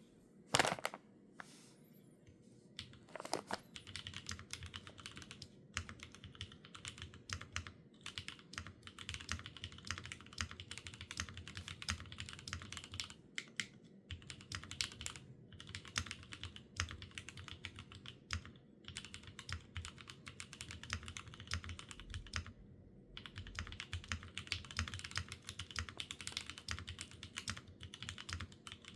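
Steady typing on a Neo65 Cu mechanical keyboard with stock, unlubed Gateron Oil King linear switches on a polycarbonate plate, built without foam, under GMK keycaps. One loud clack comes just after the start, then a dense run of keystrokes with a brief pause about 22 seconds in.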